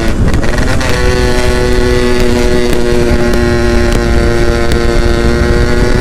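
Yamaha F1ZR's 110cc single-cylinder two-stroke engine running under way, heard from the rider's seat. Its note breaks up briefly at the start, then holds steady and rises slowly in pitch.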